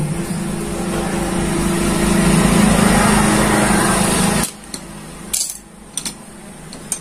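A loud steady mechanical drone with a hum cuts off suddenly about four and a half seconds in. A few light metallic clinks follow as clutch parts are handled.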